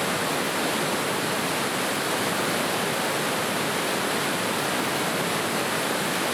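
River water rushing, a steady, even flow sound.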